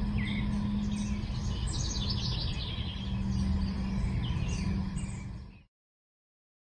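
Outdoor garden ambience with birds chirping in the trees over a steady low hum; the sound fades out to complete silence about a second before the end.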